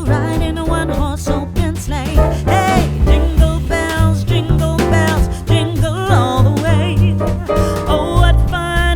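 Background music with singing over a steady bass and drum beat.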